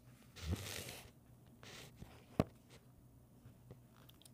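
Faint handling noise: a short rustle or scrape about half a second in, a fainter one shortly after, and a single sharp click a little past halfway.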